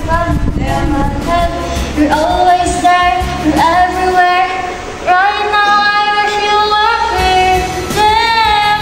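A female voice singing a slow, sustained melody over backing music. She holds one long note from about five to seven seconds in, and the note near the end wavers.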